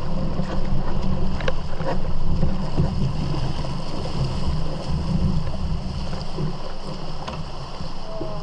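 Rushing, churning water of small river rapids against a canoe, with a heavy wind rumble on the microphone and a few light knocks.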